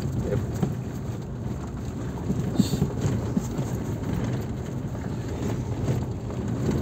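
Cabin noise of a Mahindra TUV300 on the move, with a few short knocks a little after two seconds in. This is the khad-khad rattle from near the handbrake, which the owner says is usually down to the gear mount shifter link.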